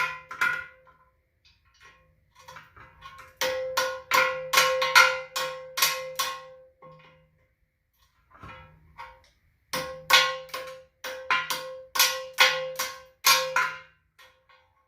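Hammer blows on a big-rig tire rim while its valve stem is being changed, each strike ringing with a metallic tone. They come in two runs of roughly eight quick blows each, with a couple of single hits near the start.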